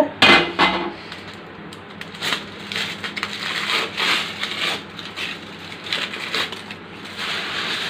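Aluminium foil crinkling and crackling as hands peel it back off the rim of a biryani pot, in short irregular crackles.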